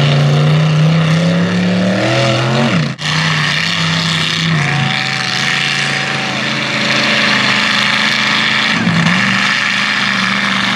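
Mega truck's engine running hard under throttle, its note mostly steady with brief dips in pitch. The sound breaks off abruptly about three seconds in and picks up again straight away.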